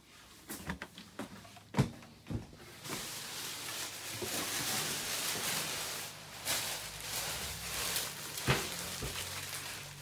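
Knocks and thumps of someone moving through a wood-fitted boat cabin, footsteps and bumps against doors and furniture. The loudest knock comes about two seconds in and another near the end, with a rushing hiss in between.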